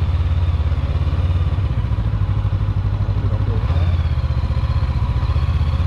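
Motorcycle engine running steadily under way, a low, fast throb that holds through without a clear rev change.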